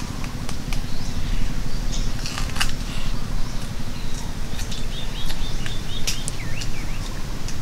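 Outdoor orchard ambience: a steady low rumble of wind on the microphone, with a few sharp clicks scattered through and small birds chirping briefly in the middle.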